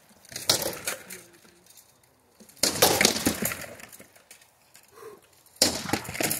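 Armoured combat: rattan weapons striking shields and armour, with the clatter of mail and steel plate. There are three flurries of blows, about half a second in, the loudest about three seconds in, and another near the end.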